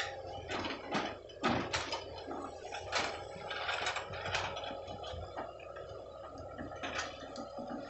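Tracked hydraulic excavators working: a steady engine hum with irregular metallic clanks and knocks, thickest in the first few seconds.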